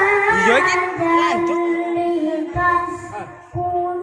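A child reciting the Qur'an in the melodic qiroah style, holding long notes with ornamented turns, with a brief break about three and a half seconds in. The voice is amplified through a PA sound system.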